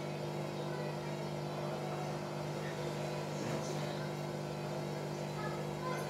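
Hoover front-loading washing machine running with a steady low hum, its drum full of excess foam during a suds lock.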